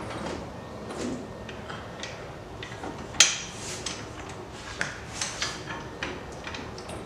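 Hydraulic floor jack being pumped by its long handle to lift a car: irregular clicks and knocks from the handle and pump, with one sharp clank about three seconds in and a few quicker clicks near five seconds.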